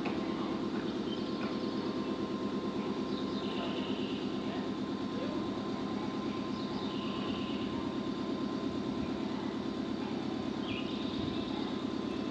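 Stationary Nankai electric train at a platform, its underfloor equipment running with a steady hum. A few short high chirps come through about three, seven and eleven seconds in.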